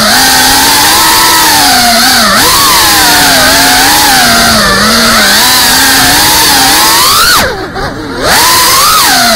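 FPV quadcopter's electric motors and propellers whining loudly as heard on the onboard camera, the pitch rising and falling with the throttle. Near the end the throttle drops off for under a second, the whine sinking and quieting before it spools back up.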